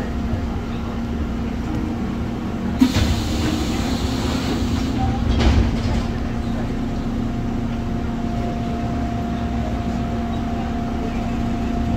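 Busan 1000-series subway car standing at a platform, its on-board equipment giving a steady hum. About three seconds in, a sharp click is followed by roughly two seconds of hissing released air, and a low thump comes shortly after.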